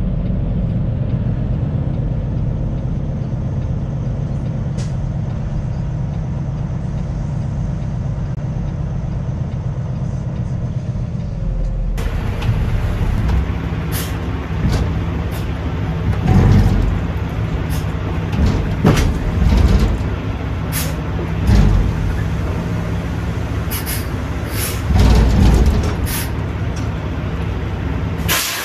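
Semi truck's diesel engine running with a steady low hum. About twelve seconds in the sound changes abruptly, and deep swells then come and go every two or three seconds, with scattered short sharp sounds between them.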